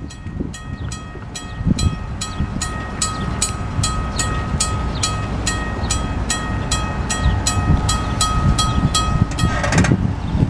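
Railroad grade-crossing warning bell ringing steadily at about three strokes a second over a low rumble. It stops abruptly near the end.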